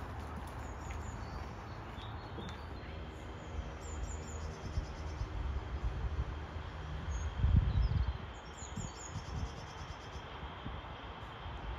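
Outdoor ambience: a steady low rumble with a few faint high bird chirps, and a louder low surge of rumble about seven and a half seconds in.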